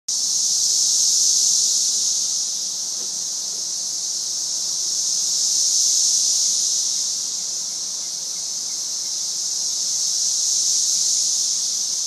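Peak chorus of 13-year periodical cicadas: a loud, high-pitched, unbroken drone that goes up and down, swelling and fading in slow waves about every five seconds.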